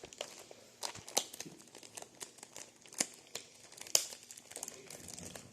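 Packaging being handled and unwrapped: plastic and paper crinkling and rustling, with sharp clicks and taps at irregular moments, the loudest about four seconds in.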